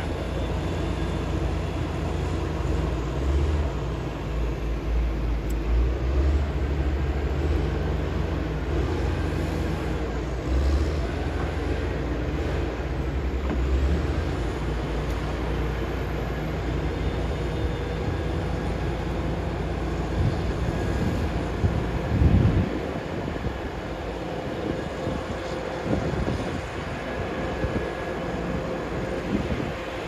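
Diesel engine of heavy earthmoving machinery running with a steady low rumble. There is a loud knock about two-thirds of the way through, after which the rumble is lighter.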